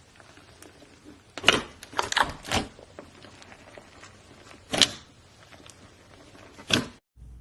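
Slime being squeezed and pressed by hand, making sharp, wet pops and small crackles: a quick cluster of four pops about a second and a half in, then single pops near the middle and near the end.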